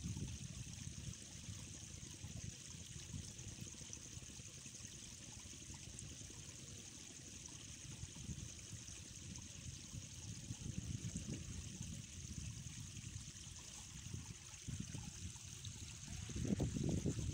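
Water lapping and trickling against the rocks at the water's edge, a steady low wash that swells briefly near the end, with a steady high hiss above it.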